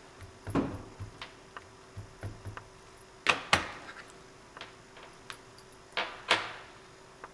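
Hard plastic knocks and clicks as an ink pad and a clear acrylic stamping block are handled and set down on a cutting mat. A few light taps come first, then two sharp double knocks about three seconds apart.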